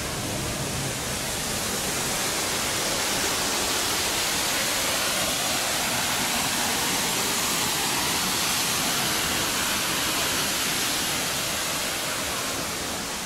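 Steady rush of water pouring over the Düden waterfall, growing a little louder and then easing slightly near the end.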